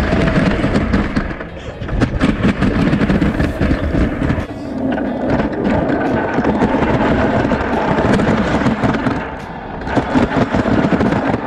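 Backyard-built wooden roller coaster train running along its wooden track: a loud, continuous rattle and clatter of wheels on wood, with wind buffeting the on-ride camera's microphone.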